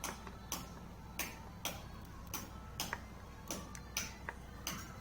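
Steady, even ticking, about two sharp ticks a second, over a faint steady hum.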